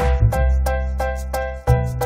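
Background music: a bright tune of short pitched notes, about three a second, over a low bass line.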